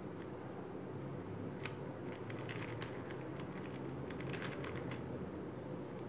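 Plastic 3x3 speed cube being turned fast with finger tricks: a quick run of light clicks as the layers snap round, starting a little under two seconds in and stopping about five seconds in.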